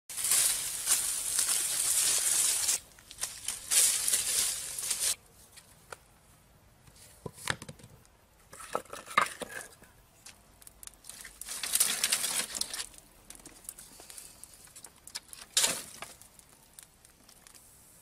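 Dry leaves and brush rustling and crackling in several loud spells, two of them in the first five seconds and more about twelve and sixteen seconds in, with quieter stretches of scattered clicks and knocks between.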